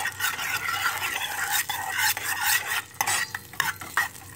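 Butter melting in a pot over low heat, stirred with irregular scraping strokes against the pot, over a steady light sizzle.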